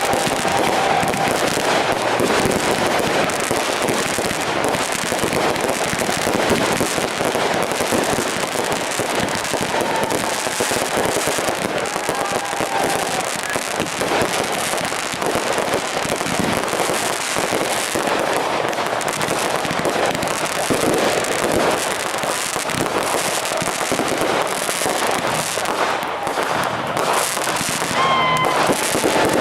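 Fireworks going off in a dense, continuous crackle of many small bangs and pops.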